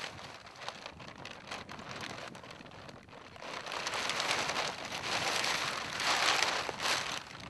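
Finsterwalder hang glider's sail cloth rustling and crinkling as it is handled while the keel tube is pushed into the keel pocket. The crackling grows louder from about halfway through.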